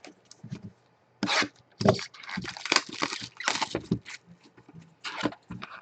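Trading-card packaging being handled and torn open: a quick, irregular run of crinkles and rips that starts about a second in.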